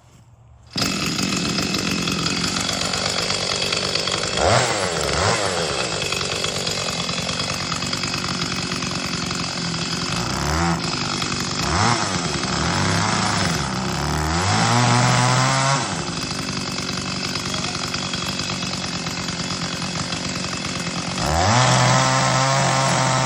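Two-stroke petrol chainsaw starting suddenly about a second in, running between idle and full throttle and revved up five times while cutting a notch into a tree trunk. The last two revs are held for a second or two each.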